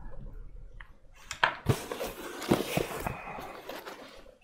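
Cardboard shipping box being opened by hand: its flaps are folded back with rustling and scraping, and a few sharp knocks of cardboard, the loudest about a second and a half in and again a second later.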